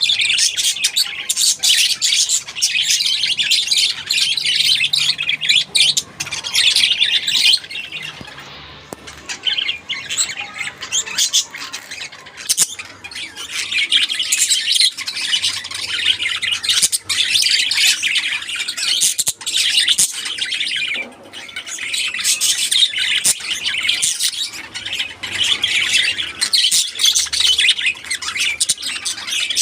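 A flock of budgerigars chirping and chattering continuously, many rapid overlapping calls at once, easing a little partway through before building up again.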